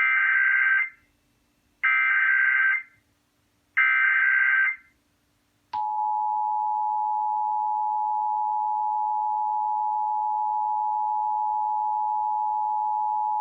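Emergency Alert System test signal: three one-second bursts of the SAME digital data header, about two seconds apart, then, about six seconds in, the steady two-tone EAS attention signal (853 and 960 Hz sounding together). The sequence marks the start of a Required Monthly Test.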